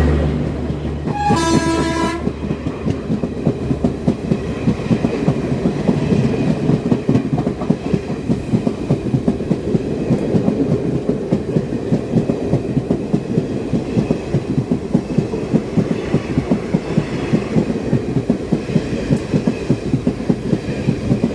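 Locomotive horn blown once, about a second long, just after the start, then the fast, continuous clickety-clack of the LTT–Kochuveli Garib Rath Express's coach wheels over rail joints as it runs through the station on the adjacent track.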